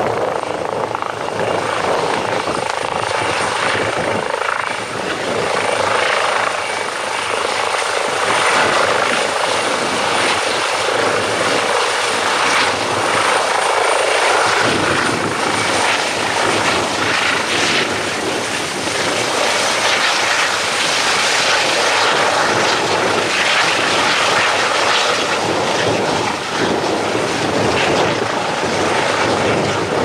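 Eurocopter EC135T2 helicopter hovering low, its twin turboshaft engines, main rotor and Fenestron ducted tail rotor running loud and steady, with a thin, steady high-pitched whine over the rotor noise.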